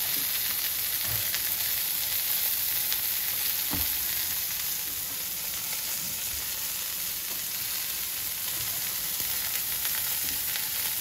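Hot oil sizzling steadily in frying pans as chips and chicken burger patties fry, with a few faint soft knocks.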